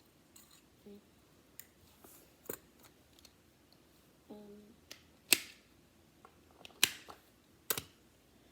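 Fidget cube being played with: scattered sharp clicks from its buttons and switches, a few seconds apart, the loudest about five seconds in.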